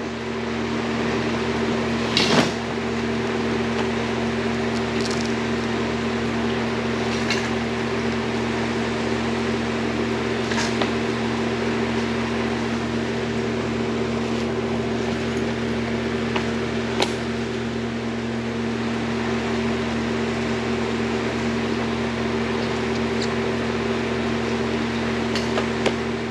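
Steady hum of an electric fan running, a constant drone with a few fixed tones over airy noise. A few brief light clicks and knocks come through it, about two seconds in and a handful of times after.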